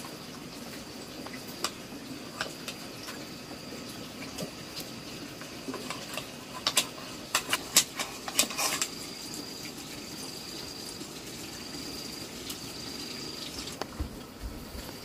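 Kitchenware clinking and knocking, with a quick run of sharp knocks about seven to nine seconds in, over a steady hiss and a thin high whine that comes and goes.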